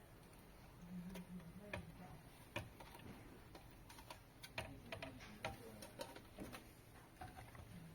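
Faint, irregular clicks and small plastic taps from ribbon cable connectors and small parts being handled and seated on a circuit board.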